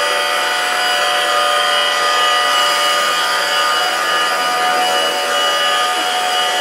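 Electric fan motors of a small student-built model hovercraft running steadily: an even whine of several high tones over a hiss of air.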